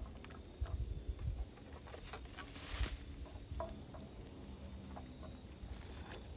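Faint rustling and crinkling of stiff trap panels being handled and pressed onto a Velcro belt around a tree trunk, with scattered light clicks, soft thumps and one louder rustle about three seconds in. Footsteps crunch in dry leaf litter as the panels go around the trunk.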